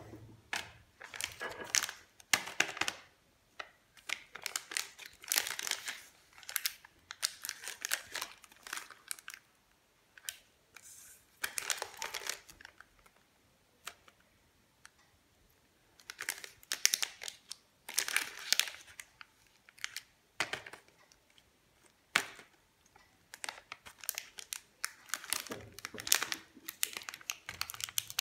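Plastic wrapper of a Parle Hide & Seek biscuit pack crinkling in the hands in repeated bursts with short pauses, and tearing as it is opened.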